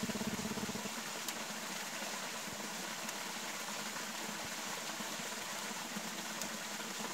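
Steady rushing hiss of a forest stream, with a few faint clicks.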